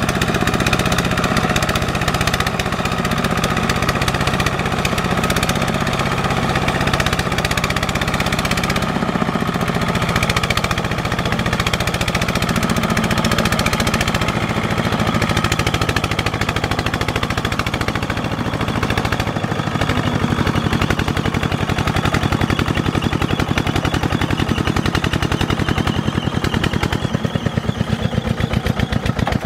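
Single-cylinder diesel engine of a two-wheel walking tractor running steadily under load, its lugged wheels churning through sticky mud while it pulls a trailer of rice sacks. The engine has a fast, even chugging beat.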